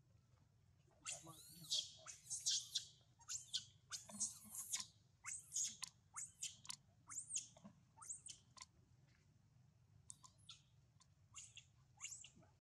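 Baby macaque screaming in a rapid string of short, high-pitched squeals, some rising and falling in pitch. The squeals start about a second in and thin out over the second half.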